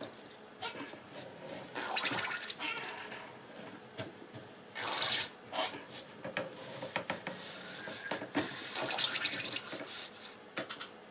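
Jets of acetone squirting from pedal-driven syringes through needles onto a 3D-printed part in a plastic tub: about half a dozen spurts of spraying and splashing liquid with short gaps between.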